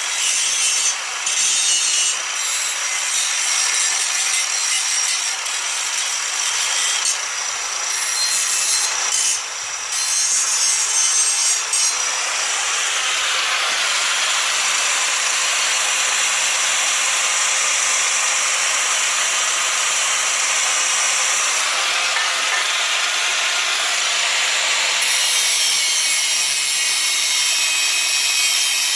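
Electric angle grinder grinding on steel, a continuous abrasive hiss over a faint motor hum. It is cut by a few short breaks in the first ten seconds, then runs unbroken.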